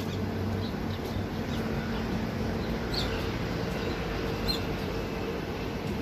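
A few short, high squeaks from a wild common myna, the clearest about three and four and a half seconds in, over a steady low hum and rumble.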